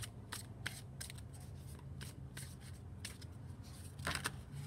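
Tarot cards being shuffled by hand: a string of light, irregular card snaps and slides, with a denser flurry about four seconds in.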